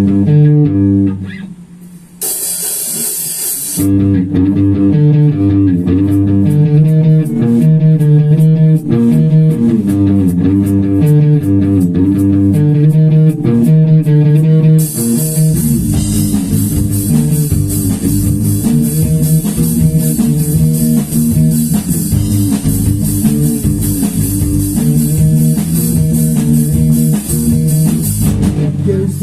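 Instrumental passage of a rock song: bass and guitar playing a riff over a drum kit. The band drops out briefly about a second in, and the drums get fuller with cymbals from about halfway.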